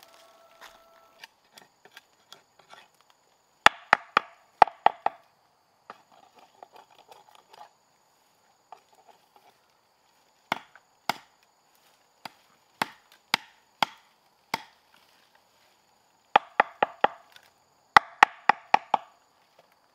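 Chopping blows into wood: quick runs of five or six strikes, with single, more widely spaced strikes between them.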